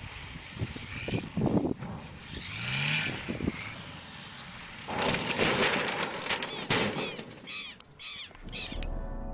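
A light propeller aircraft's engine runs as it comes in low to land. About five seconds in, a sudden loud, noisy burst marks the plane hitting the ground and crashing, then fades. Dramatic music starts near the end.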